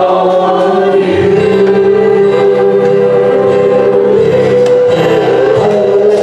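Church congregation and worship band singing a worship song, holding a long sustained final note over the instruments.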